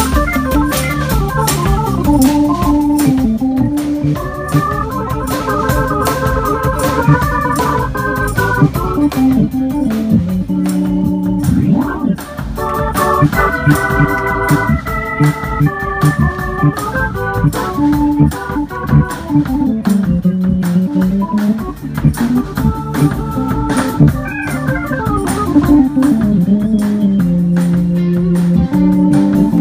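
Live band music led by an electronic keyboard played with an organ sound: held chords and melodic runs over a drum beat.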